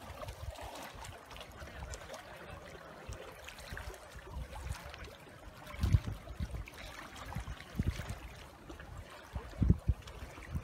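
Small waves lapping against a rocky lake bank, with a few short low thumps, the loudest about six seconds in and near the end.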